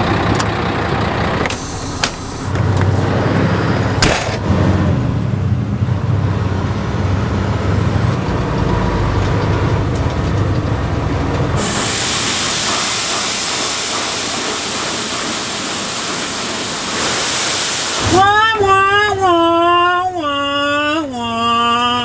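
Semi truck's diesel engine running with a couple of clunks, then a steady rushing hiss of soybeans pouring out of a hopper trailer's open gate into the pit grate, which cuts off abruptly. Near the end a voice sings a short falling tune.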